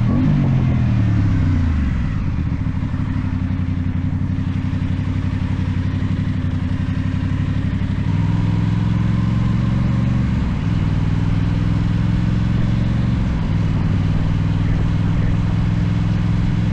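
Aprilia Tuono 660 parallel-twin engine breathing through a cheap aftermarket exhaust on the move: revs fall over the first two seconds, then the engine holds a steady speed with small changes in pitch about halfway through and again later.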